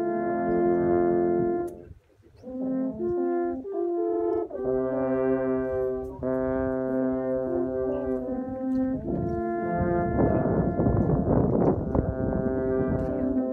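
Three wooden alphorns playing together in harmony, mostly long held notes. A brief break comes about two seconds in, followed by a run of shorter notes before the long chords resume, with a rough noisy stretch under the notes around ten seconds in.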